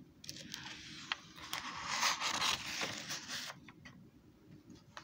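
Paper pages of a hand-drawn picture book being turned: a rustling scrape of paper for about three seconds with a few sharp clicks in it, then a couple of faint ticks near the end.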